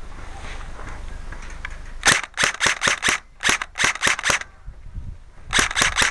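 Airsoft gun firing three quick strings of sharp shots, about four to five a second: five, then five more, then three near the end.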